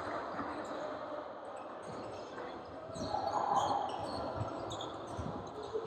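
Basketball bouncing on a hardwood gym floor in a series of thuds, with short high sneaker squeaks.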